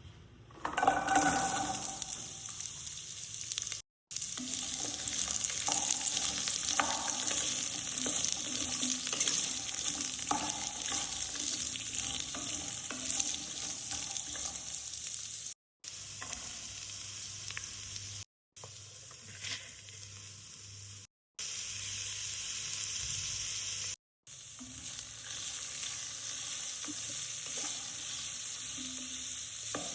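Food sizzling and frying in hot oil in a pan while it is stirred, the sizzle jumping up loudly about a second in. The sound breaks off abruptly several times at edits.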